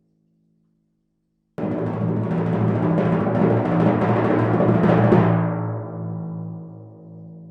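Timpani roll: it starts suddenly about a second and a half in, grows louder for several seconds, then the strokes stop and the drum rings on, fading away.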